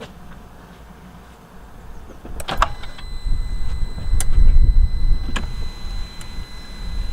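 Replacement Audi TT windscreen wiper motor running on a test after being plugged in: a click about two and a half seconds in, then a low rumble with a steady high whine and a few more sharp clicks. The replacement motor is working.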